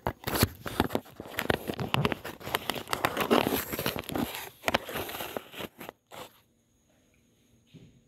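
Handling noise from a phone held close to its microphone: a dense run of rustling, scraping and knocks as it is gripped and moved, stopping about six seconds in.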